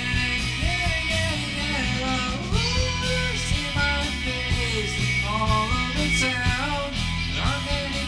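Rock power trio playing, raw from the soundboard: electric guitar, bass guitar and drums, with a melody line sliding and bending in pitch over the top.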